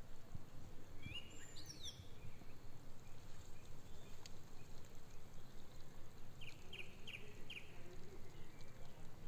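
Outdoor ambience: a steady low rumble with bird calls, including a rising chirp about a second in and a quick run of four short chirps near the end.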